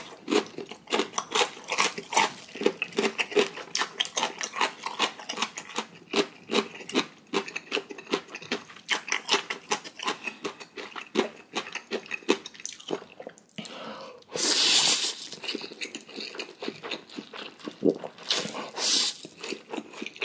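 Close-miked eating of thick-sauced instant noodles: rapid wet chewing and smacking clicks throughout. There is a long loud slurp of noodles about two-thirds of the way through and a shorter one near the end.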